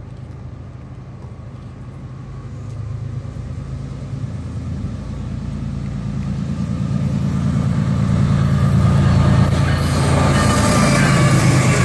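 Freight train's diesel locomotives approaching, their engines' low drone growing steadily louder. As the lead units come alongside about ten seconds in, wheel and rail noise joins in.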